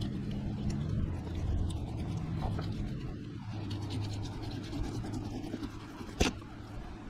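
Fillet knife scraping and cutting along a striped bass's backbone, the blade making many small scratchy clicks through scales, skin and rib bones, with one sharp click about six seconds in.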